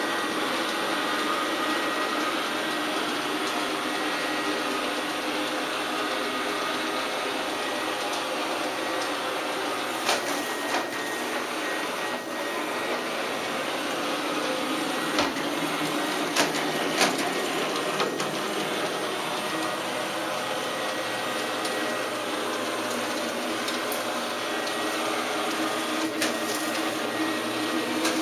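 Robot vacuum cleaner running, a steady whir of its suction motor and brushes, with a few short clicks or knocks about ten seconds in, around fifteen to seventeen seconds, and again near the end.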